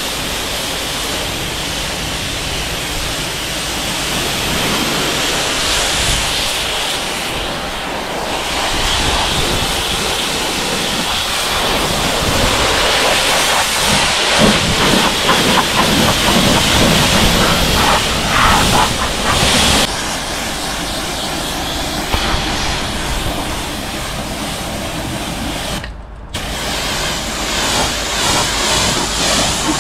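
Pressure washer spraying water onto a car, a steady loud hiss of the jet that cuts out briefly near the end.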